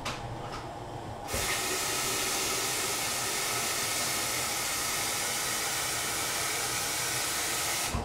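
Tomato and egg soup boiling in a saucepan on a gas burner. About a second in, a loud, steady hiss starts suddenly and cuts off just before the end.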